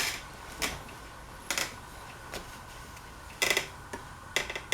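Harbor Breeze Pulsar ceiling fan running on low speed with a faint steady hum, under a handful of irregular sharp clicks and taps.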